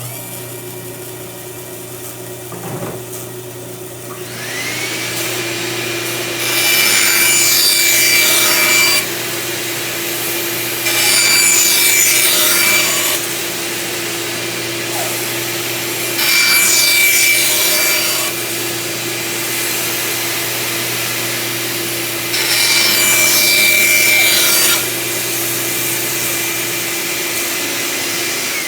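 A small dust collector hums steadily while a bandsaw motor spins up about four seconds in and then runs. The blade makes four cuts through wood, each a couple of seconds of louder rasping hiss, evenly spaced. Near the end the dust collector's hum stops.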